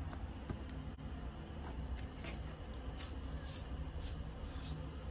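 Paper inner sleeve rustling and scraping as a vinyl record is slid out of it. There are a few small clicks, then two longer scrapes about three seconds in and near the end, over a low steady hum.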